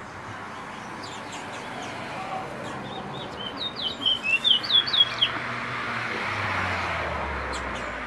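Caged songbird, a 'bully', singing a quick run of about ten sharp, sliding chirped notes lasting under two seconds, starting about three and a half seconds in. A background rushing noise with a low rumble swells and fades after it.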